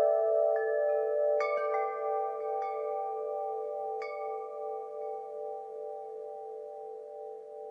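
Wind chimes ringing, several chimes struck a few times in the first half and their long, overlapping tones slowly dying away toward the end.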